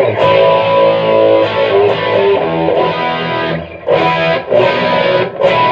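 Electric guitar played through a Gallien Krueger 250RL amp head on its overdrive channel with the gain up and stereo chorus on: distorted chords ringing out, restruck a few times.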